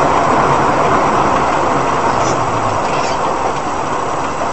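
Steady rushing noise of a moving vehicle, engine and road noise together.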